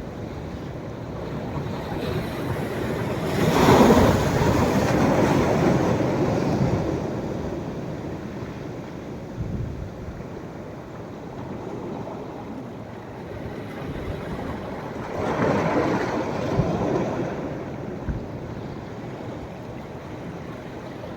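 Sea waves breaking on a beach on a rising tide: two larger waves crash, about four seconds in and again about fifteen seconds in, with a steady wash of surf between them.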